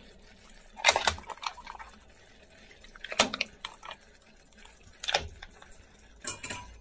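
Mussels in their shells lifted one at a time from a metal bowl of water and set into a paella pan: about five separate wet clicks and clatters of shell, a second or two apart, with a little dripping water.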